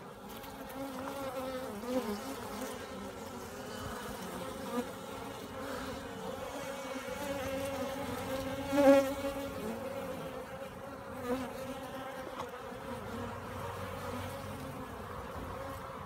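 Honeybees humming steadily over the open frames of a hive. One buzz swells loud for a moment about halfway through.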